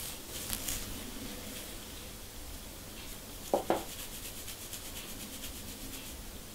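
Fine-tooth plastic comb scratching a dry, flaky scalp through short kinky hair, lifting dandruff flakes. Scattered scratches at first, then a fast, even run of short scraping strokes in the second half, with two loud knocks a little past halfway.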